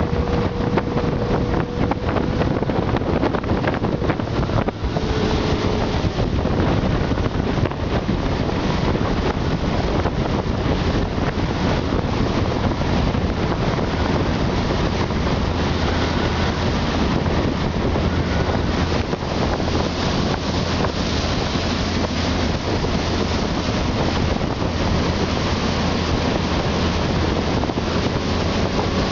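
Motorboat running steadily at speed while towing a tube, its engine a steady low hum under the rush of the churning wake, with wind buffeting the microphone.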